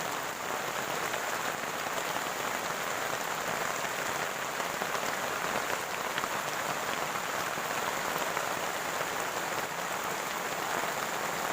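Steady rain falling, a dense even patter, with a thin, steady high-pitched tone behind it.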